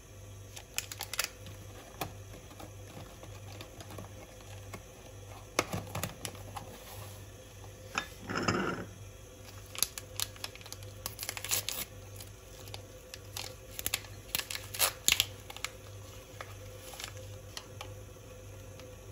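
Paper tea bag sachets crinkling and rustling in the hands as they are pulled from a cardboard box and one is torn open, in scattered crackles and clicks.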